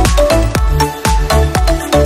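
Background electronic dance music with a steady beat, bass and a bright melody.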